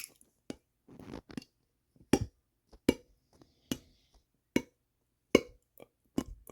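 A series of sharp taps or knocks, about one every 0.8 seconds, some with a short ring, with a few fainter clicks between them.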